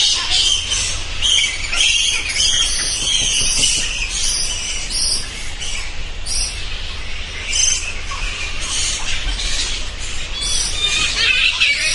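Bats squeaking: rapid, overlapping high-pitched chirps and chitters.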